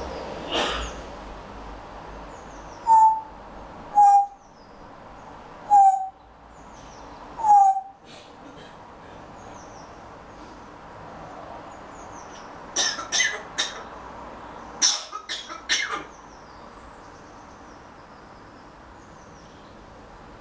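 Grey parrot calling: four short, loud whistled hoots with a slightly falling pitch, a second or two apart, then a quick run of clicks and squeaks about two-thirds of the way through.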